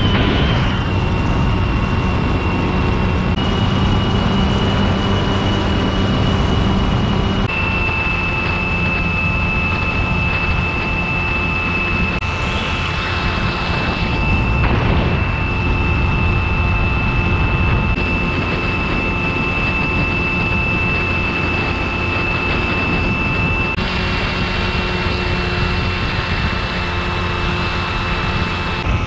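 Skywalker FPV plane's brushless electric motor and propeller whining steadily in flight, heard from the onboard camera with wind rush over it; the pitch shifts in small steps a few times as the throttle changes.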